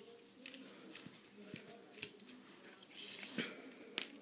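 Faint, scattered small metal clicks and scrapes as a flat screwdriver works on a Zippo lighter insert, with a slightly louder scraping stretch about three seconds in and a sharp click near the end.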